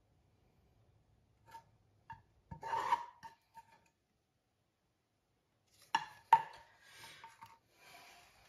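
Small metal pot clinking and ringing as it is tipped and knocked, with two sharp knocks about six seconds in, then a wooden spatula scraping the last of the hot sugar wax out of the pot.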